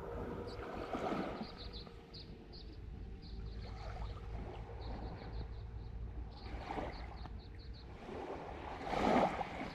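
FPV quadcopter's motors holding a faint steady hum over a low wind rumble, with brief louder whooshes about a second in, near seven seconds and, loudest, near nine seconds. Faint rapid high ticks come and go throughout.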